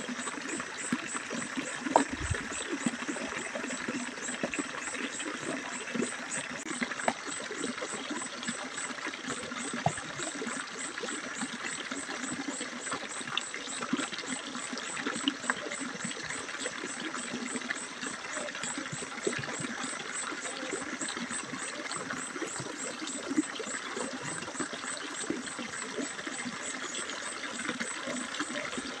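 Scrapes and light knocks of a knife cutting and prying at the wooden top of a hollow-log beehive, over a steady background of trickling water.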